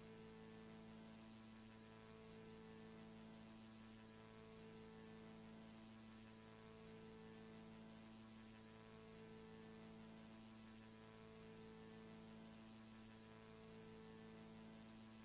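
Very faint electronic hum made of several steady tones, with a second set of tones pulsing on and off about every two seconds.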